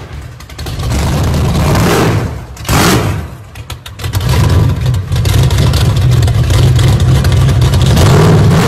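Logo-intro sound effect: two whooshes, then a loud engine revving and rumbling that cuts off suddenly at the end.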